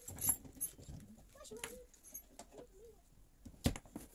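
Scattered light clicks and knocks of hand-handled treadmill parts and a bag of small hardware, with one sharper knock near the end and a couple of faint brief squeaks.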